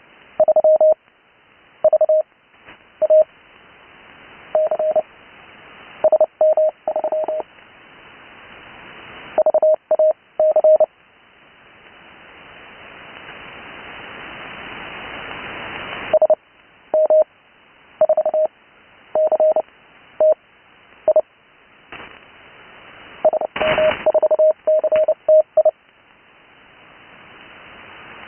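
Morse code (CW) sent on a paddle key: a single steady tone of about 600 Hz keyed in dots and dashes, spelling out amateur radio call signs. Band hiss from the HF receiver swells in the gaps between characters and through a pause of several seconds near the middle.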